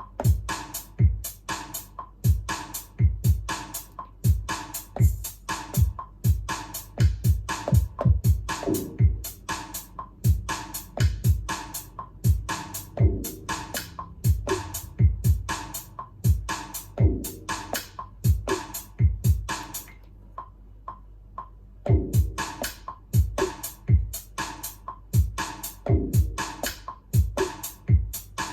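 Electro house beat playing from a Maschine drum-machine session: a steady four-on-the-floor kick about twice a second under crisp hats and synth. About two-thirds of the way through, the drums drop out for about two seconds, leaving a low hum, then the beat comes back in.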